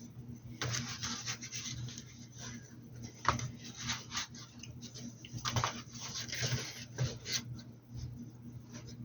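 A paintbrush scrubbing and stroking on a hat's surface: a run of short, irregular rubbing strokes over a steady low hum.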